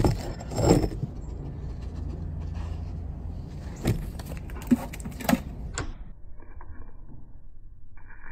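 Metal jangling of a dog's collar hardware in a few sharp clicks and jingles, over a steady low hum that drops away about six seconds in.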